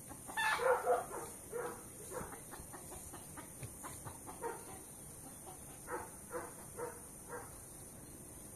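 Farm animals calling in the background in short, repeated calls. The loudest calls come about half a second in, with fainter single calls scattered after.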